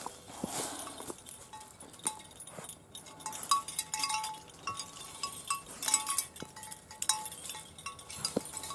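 Metal tags on a dog's collar jingling as the dog moves: short, clear, high clinks repeated irregularly, with light ticks in between.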